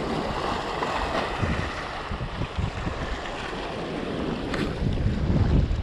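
Strong onshore wind gusting over the microphone, with surf washing against the rocks, rising and falling in gusts.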